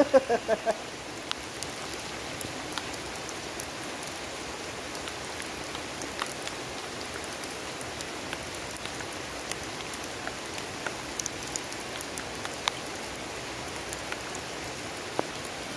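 Steady rain falling, with scattered sharp taps of single drops close by.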